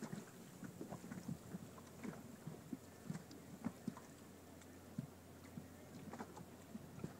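Small waves slapping against the hull of a boat: faint, irregular knocks and taps over a low, steady wash of water and wind.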